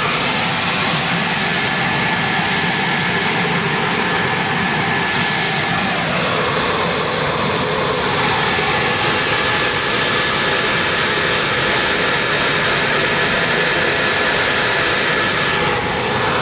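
Stainless steel centrifugal blower with a squirrel-cage impeller, driven by a 3 hp two-pole three-phase electric motor, running steadily: a loud, even rush of air with a thin steady high tone over it.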